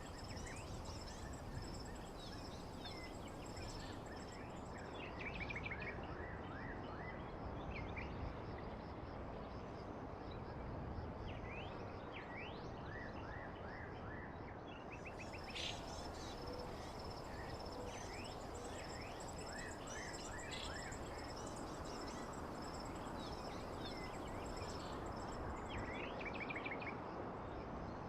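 Nature ambience: small birds chirping in short repeated trills and notes over a steady noise bed, with a continuous high insect drone.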